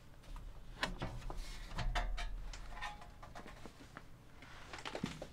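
The sheet-metal top cover of a Sony EV-S9000E video recorder being slid back and lifted off, with a run of metal scrapes and clicks about one to three seconds in.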